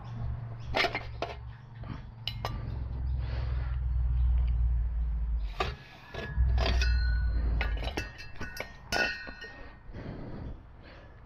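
Metal clinks and scrapes as a perforated end baffle is worked loose and pulled out of a Triumph Bobber's silencer, with a few short ringing chinks of metal later on.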